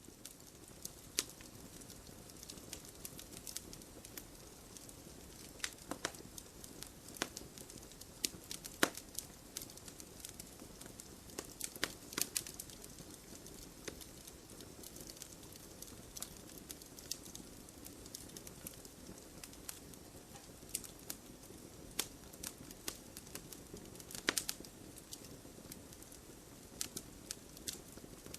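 Wood fire crackling, with a steady low hiss and irregular sharp pops and snaps from the burning logs.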